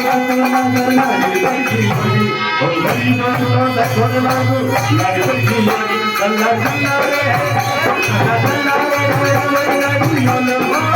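Music with a melody over a steady, evenly repeating drum beat and rattling percussion.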